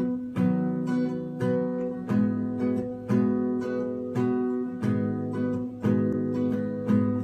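Music: acoustic guitar strumming chords in a steady rhythm, with no singing.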